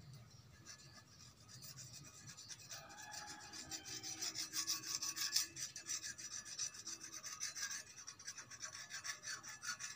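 The plastic nozzle of a tube of superglue scraping back and forth over a steel hoe blade, a fast run of scratchy rubbing strokes that grows louder after about three seconds.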